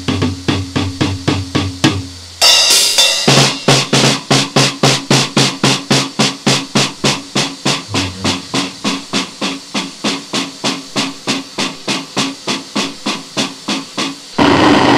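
Noisecore recording: rapid, evenly spaced distorted pulses, about four a second, over a steady low hum, broken by a harsh noise blast about two seconds in and another dense wall of noise starting near the end.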